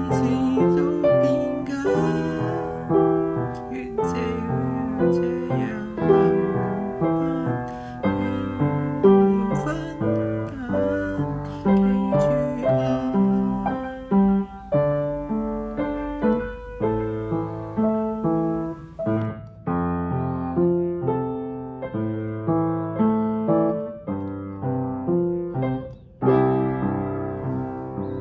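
Solo piano playing an instrumental passage of struck chords and melody notes with no singing, ending on a last chord that rings and fades near the end.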